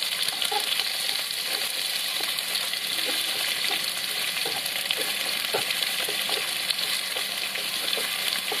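Garlic, ginger, scallions and red chilies sizzling steadily in hot oil and caramelised sugar in a nonstick wok. Wooden chopsticks stir them, with small scattered taps and scrapes against the pan.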